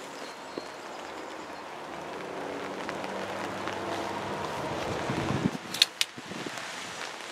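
Steady rain, with a vehicle going by on a wet road that grows louder to a peak about five seconds in and then fades, followed by two sharp clicks about six seconds in.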